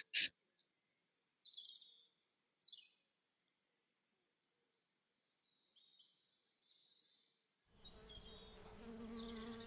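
Faint high bird chirps, then near the end a steady buzzing hum of many insects, mostly honeybees, working the flowers of a bush close to the microphone.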